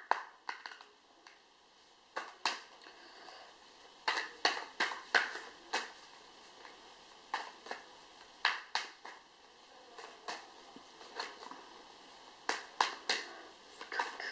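A deck of Moonology oracle cards being shuffled by hand: irregular sharp slaps and clacks of the cards, often several in quick succession.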